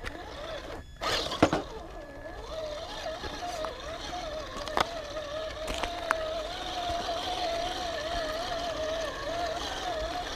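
Traxxas TRX-4 Sport RC crawler's electric motor and gear drivetrain whining, its pitch wavering up and down with the throttle. A loud clatter about a second in, and a few sharp clicks around halfway.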